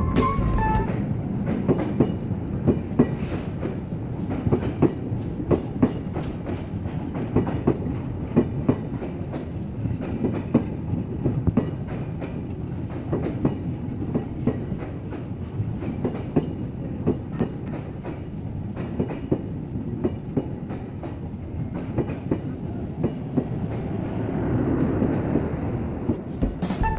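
Ekota Express passenger coaches rolling past close by: a steady rumble of steel wheels on rail with frequent, irregular clacks.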